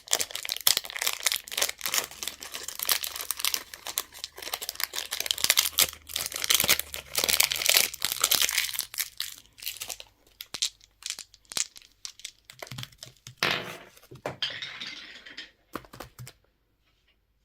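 Candy wrapper crinkling and tearing as it is unwrapped by hand, dense at first and then thinning to scattered crackles before stopping shortly before the end.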